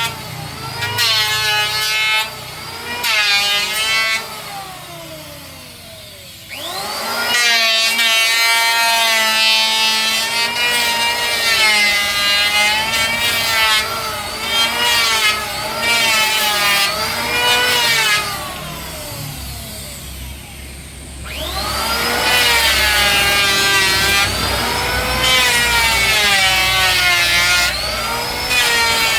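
Electric wood planer running on a board: its motor whine sags in pitch each time the blades bite into the wood and recovers between passes. The motor winds down twice and starts again.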